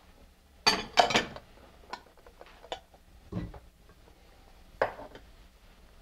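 A bowl and a silicone spatula knocking and clinking against stainless steel pots as sliced onions are tipped in. There are about half a dozen sharp knocks, the loudest a pair about a second in, and a duller thud past the middle.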